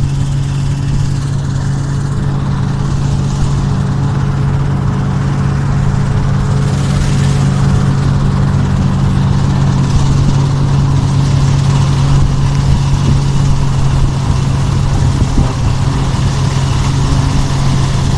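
Engine of a wheat-harvesting machine running steadily with a low, even hum, a rushing noise building over it from about six seconds in.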